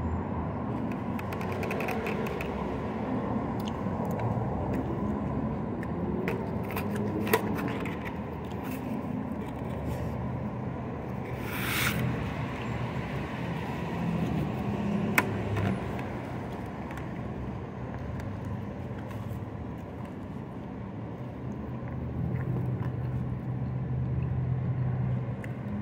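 Steady low outdoor background hum, with a few small clicks and scrapes as a plastic fork and a plastic sauce cup are handled while eating, and one brief rustle near the middle.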